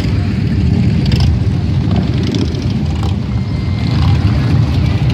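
Several cruiser motorcycles riding past one after another, their engines a loud, steady low rumble.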